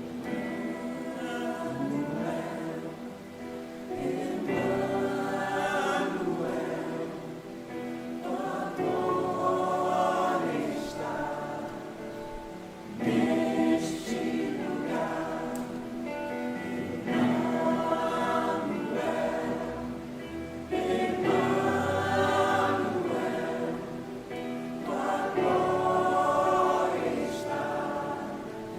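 Church choir singing a hymn in sung phrases of a few seconds each, with brief breaths between them.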